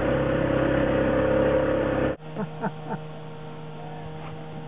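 Boat motor running steadily, stopping abruptly about two seconds in. After that comes a quieter steady electrical hum with a few short, faint squeaks.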